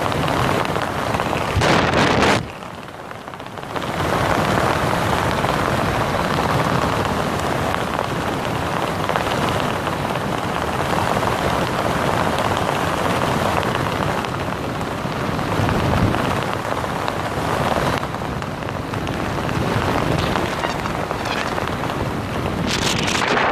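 Wind noise on a helmet-mounted camera's microphone from airflow under an open parachute canopy in flight, a steady loud rush that drops briefly about two and a half seconds in.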